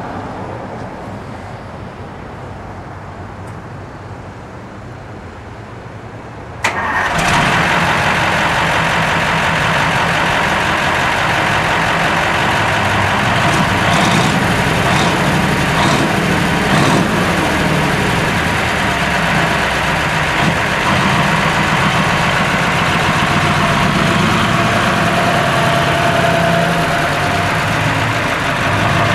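Military 10-ton truck's engine catching about seven seconds in after a quieter stretch, then running loudly and steadily: running again after sitting for ten years.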